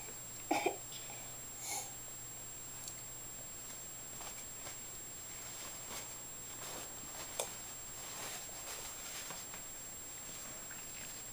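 Quiet room with a steady low hum. A young child's short throat sounds come about half a second in and again, softer, near two seconds, with a few light taps and one sharp click later on.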